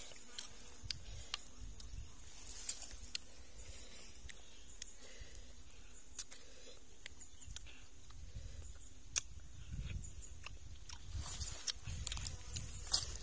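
Scattered light clicks and scrapes of a shell and a metal spoon against grilled river mussel shells as the meat is picked out.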